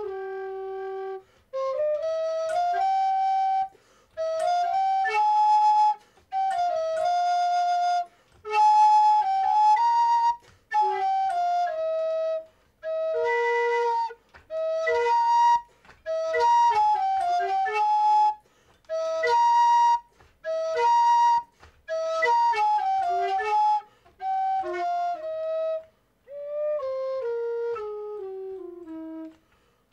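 Homemade whistle melodica, PVC whistle pipes blown through a mouth hose and fingered from a wooden keyboard, playing short phrases of mostly stepwise notes in a xenharmonic (non-standard) tuning. The phrases are separated by brief gaps.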